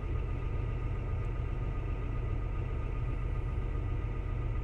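A farm vehicle's diesel engine running steadily, mostly low-pitched, with a few faint, steady whines above it.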